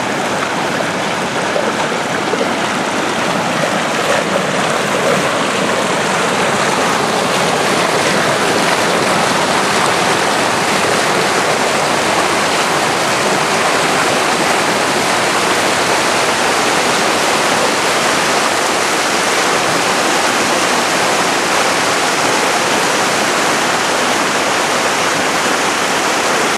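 Water of a shallow stream rushing and splashing over rock in a small cascade: a steady, loud rush.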